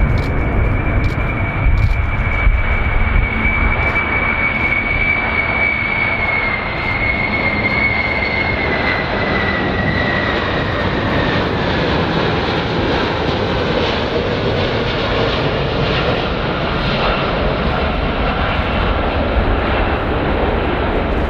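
Boeing 747 VC-25A's four CF6 turbofan engines on landing approach: a low, steady roar with a high whine that slowly falls in pitch as the jet passes.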